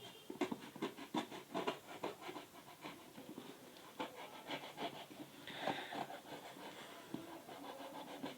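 Knife cutting into a sealed supplement pack, with irregular crackling and scratching of the packaging as it is handled and a brief scraping rasp about five and a half seconds in.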